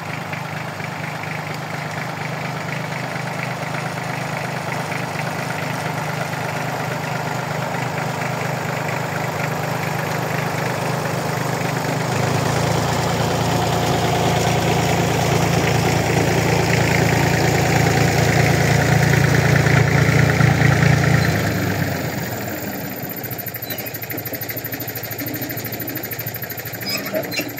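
IMT tractor's diesel engine running steadily as the tractor drives up towing a trailer. It grows louder about halfway through as it passes close by, then drops back quieter a little over 20 seconds in.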